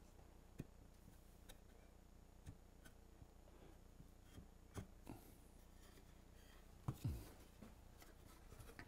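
Near silence, broken by a few faint, short knocks and taps of wooden table-base parts being handled and fitted together. The loudest comes about seven seconds in.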